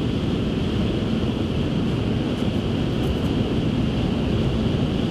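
Steady rumble of road and wind noise inside a moving pickup truck's cabin, with no engine note or other event standing out.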